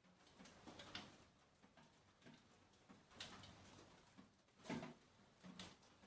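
Near silence, with faint, irregular ticks and clicks.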